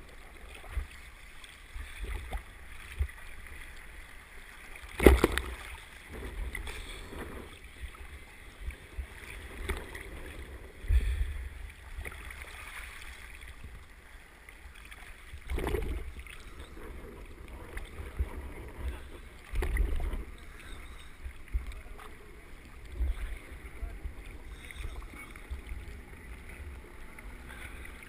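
Scuba diver's breathing heard through the camera housing underwater: muffled, low rumbling surges of exhaled bubbles about every four to five seconds, with a few sharp knocks, the loudest about five seconds in.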